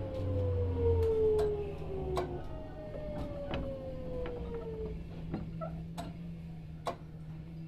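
Sotetsu 7000 series electric train's Hitachi GTO-VVVF inverter whining in several falling tones as the train slows, with wheels clicking over rail joints. The whine fades out about five seconds in, leaving a steady low hum under the joint clicks.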